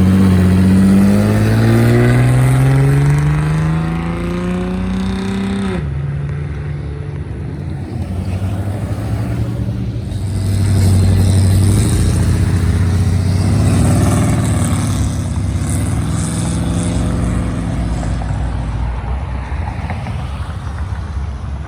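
Car engine accelerating hard away, its pitch climbing steadily for several seconds, then dropping suddenly at a gear change about six seconds in. Another loud vehicle engine follows midway through.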